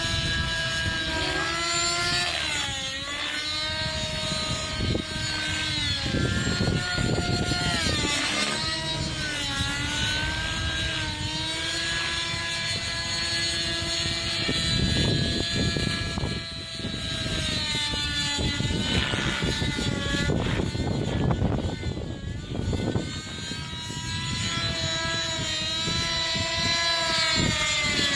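Nitro glow two-stroke engine and rotors of a TSA Infusion 600N Pro radio-controlled helicopter in flight. The engine whine rises and falls in pitch as the helicopter manoeuvres overhead.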